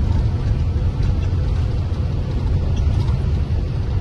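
Steady low rumble of a moving vehicle heard from inside its cabin: engine and road noise while driving.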